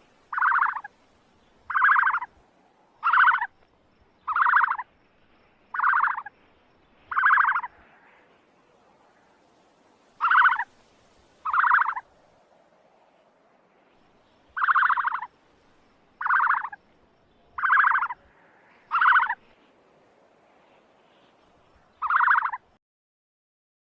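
An animal's short, buzzy call repeated thirteen times, each about half a second long, in a run of six, then two, then four, then one, with pauses between the runs.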